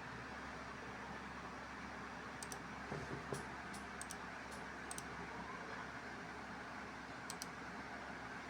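Computer mouse clicking about ten times in scattered ones and twos over a steady background hiss.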